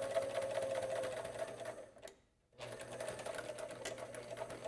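Heavy-duty Sailrite sewing machine stitching a seam down a folded fabric handle strap, running steadily. It stops for about half a second around two seconds in, then runs again for the reverse stitching at the end of the seam.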